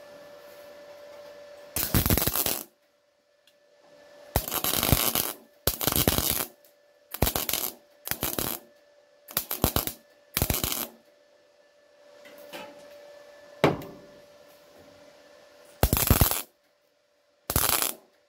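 CO2-shielded MIG welder laying about ten short tack welds along a seam in a steel car wing, each weld a burst of under a second with short pauses between. The welds are kept short and spaced to hold the heat down while stitching the panel. A faint steady hum runs between welds.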